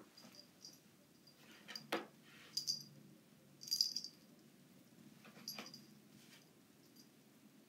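A cat's metal collar tag jingling in about five short bursts as the cat moves, the loudest a little before halfway, with two light knocks, about 2 and 5.5 seconds in.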